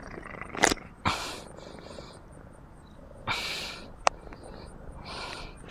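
A domestic cat purring close to the microphone. Four short rustling bursts come as its fur brushes over the phone, with a couple of sharp knocks, one near the start and one about four seconds in.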